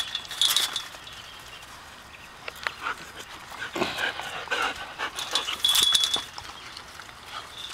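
Dogs panting and whimpering against a chain-link fence, with two short bursts of the wire fence rattling and ringing, one just after the start and one about six seconds in.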